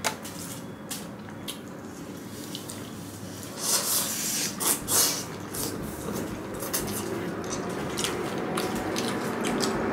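Noodle-eating sounds: wet chewing with many small clicks, and a few loud slurps of thick egg noodles (pancit miki) about four to five seconds in.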